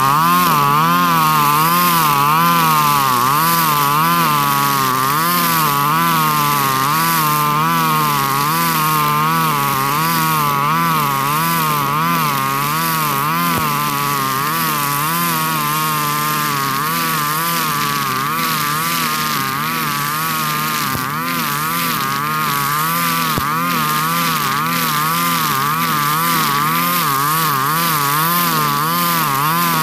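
Husqvarna 542RBS backpack brush cutter's 42cc two-stroke engine running at high revs while its 2.4 mm square nylon line cuts tall grass. The engine pitch rises and falls in a steady rhythm, about once a second, as the line bites into the grass with each sweep.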